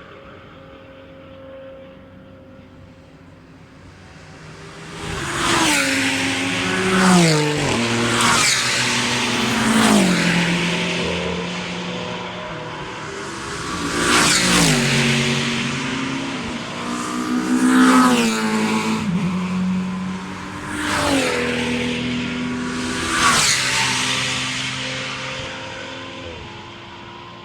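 Race cars passing one after another at night, several in turn, after a few seconds of distant engine drone. Their engine notes fall in quick steps, typical of downshifting under braking, before fading away near the end.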